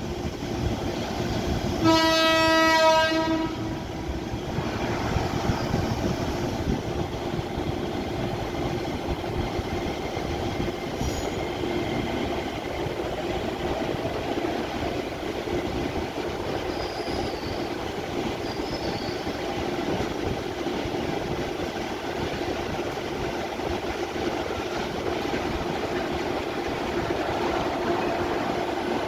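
Train horn sounding one single-note blast, about a second long, roughly two seconds in, over the steady hum and rumble of trains at a station platform.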